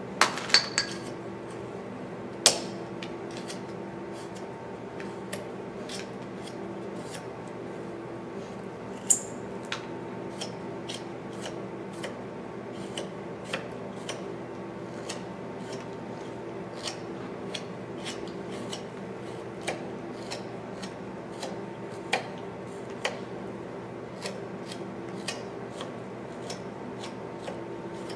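Small carving knife paring chips from a white cedar decoy body: a short, sharp snick with each cut, one or two a second, with a few louder ones in the first few seconds, over a steady low hum.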